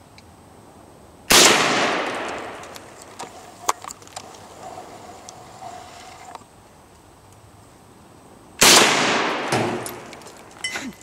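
AK-47 rifle firing 7.62×39mm rounds: two single shots about seven seconds apart, each followed by a long echoing tail. A few faint clicks come between them.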